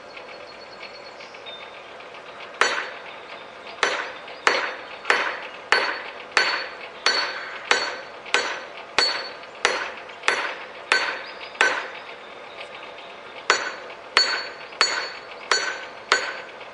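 Hammer blows on a red-hot high-carbon steel bar lying on an anvil, each strike followed by a short metallic ring. They begin about two and a half seconds in, in a steady run of about one and a half blows a second, then pause briefly and go on for a few more blows near the end.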